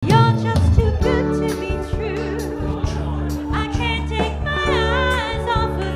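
Pop music with a steady beat and a voice singing over it through a microphone, holding a wavering note near the end.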